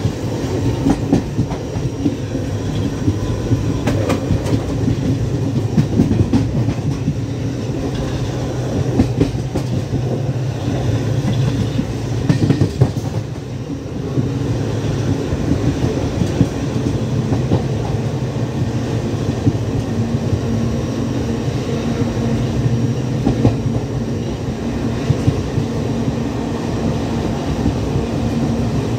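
Passenger train running along the track, heard from inside a coach: a steady low rumble with frequent short knocks from the wheels on the rails.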